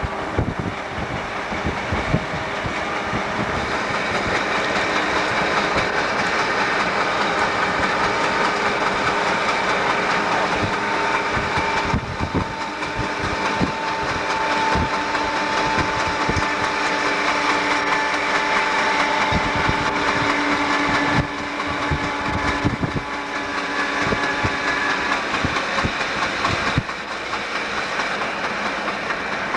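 Southern Pacific EMD GP9 diesel locomotives running steadily at about 25 mph, engine tones held throughout, with repeated thumps from a flat spot on a locomotive wheel. Heard from a vehicle pacing the train, with its road and wind noise underneath.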